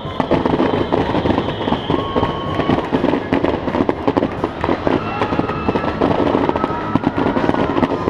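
Aerial fireworks going off in a dense, continuous barrage of bangs and crackling, with a few thin whistling tones held over it, one slowly falling in pitch near the start.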